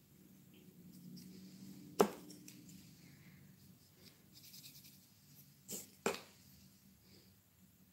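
Faint scratching of hand craft work, broken by three sharp taps: one loud tap about two seconds in, then two close together about six seconds in.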